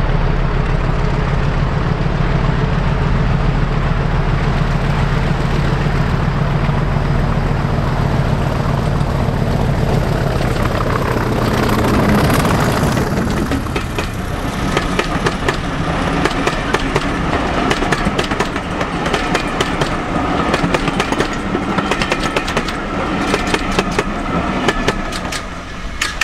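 Class 40 diesel-electric locomotive's English Electric 16-cylinder turbocharged engine working hard as it approaches, a loud steady drone that drops in pitch as it passes about twelve seconds in. Then the coaches' wheels clatter over the rail joints while a high whistle carries on, and the train fades away near the end.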